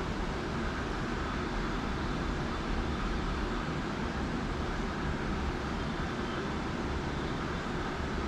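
Steady low rumbling background noise, even throughout, with no clear events.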